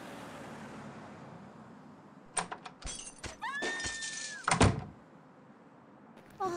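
A door being handled: a few clicks of the latch, a squeaking hinge with a steady high tone as it swings, then one loud thump about four and a half seconds in.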